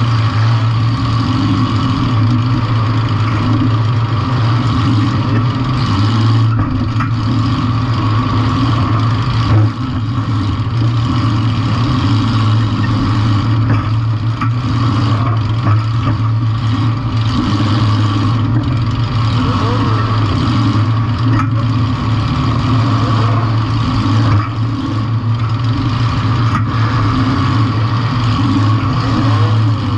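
Compact demolition-derby car's engine running loud and steady, with a few short knocks, the sharpest about ten seconds in.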